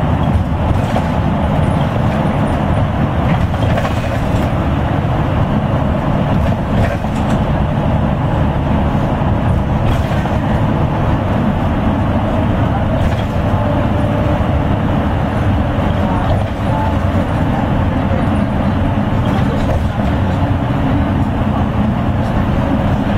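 Steady engine hum and road noise inside a moving route bus, with a few light knocks.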